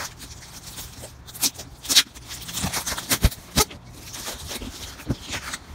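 Hands tearing open a cardboard box: irregular rips, rustles and knocks of cardboard and packing tape.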